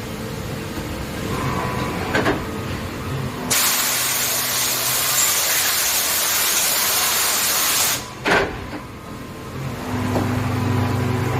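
Heavy machine tool running, most likely the Dörries VCE 125/160 vertical turret lathe: a steady motor hum with a few held tones. About three and a half seconds in, a loud hiss of air or spray starts, lasts about four and a half seconds, and cuts off suddenly. A sharp clack follows, and the low hum then grows louder near the end.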